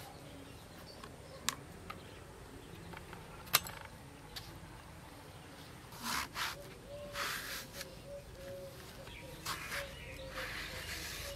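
Brinjal being cut with a knife held in the hands: a couple of sharp clicks in the first half, then a run of short crisp cuts through the vegetable in the second half.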